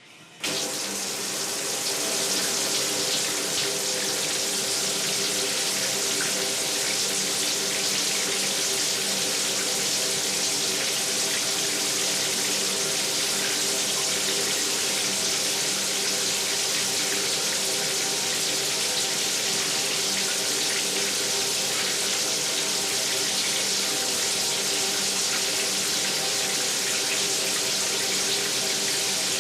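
Water tap turned on and running steadily into a sink, the flow starting suddenly about half a second in and holding even throughout, with a faint steady hum of pitch under the splashing.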